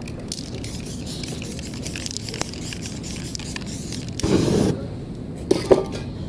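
Aerosol spray paint can hissing in short bursts onto a white board. Near the end come a louder whoosh and sharp flares as the wet paint is set alight.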